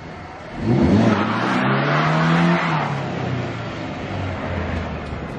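Ford Ranger pickup's engine revving hard as it accelerates away, starting about half a second in. The pitch climbs, then falls away slowly, over a hiss of spinning tyres.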